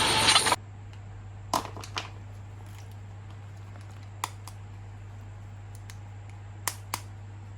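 Light clicks and taps from plastic action figures being handled, five in all, over a faint steady hum. A loud sound cuts off abruptly about half a second in.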